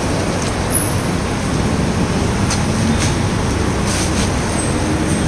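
Steady rumble of car traffic driving through a covered parking garage.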